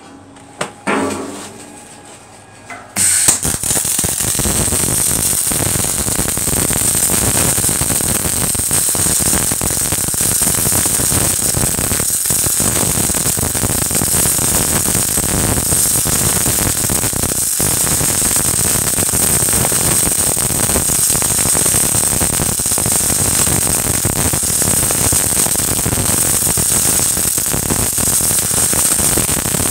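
MIG/MAG welding arc from an Oerlikon welder laying a weld bead on steel plate. The arc strikes suddenly about three seconds in and then runs as a steady, crackling hiss.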